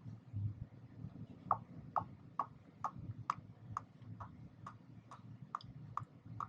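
Engine oil glugging out of a bottle as it is poured in, a regular gulp about twice a second starting about a second and a half in.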